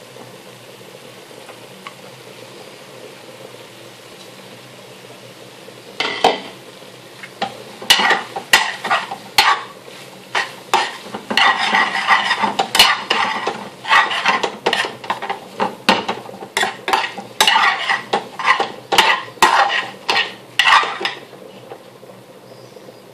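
Low steady hiss from the pan, then, about six seconds in, a long metal spoon stirring and scraping pilau rice through curry in an aluminium pan, clanking over and over against the pan for about fifteen seconds before stopping near the end.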